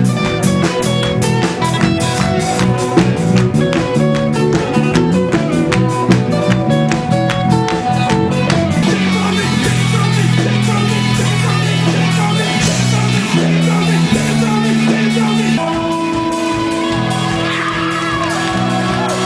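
Live dance-punk band playing loudly: guitar and bass over a fast, steady drumbeat that drops out about eight or nine seconds in, leaving held guitar chords ringing on.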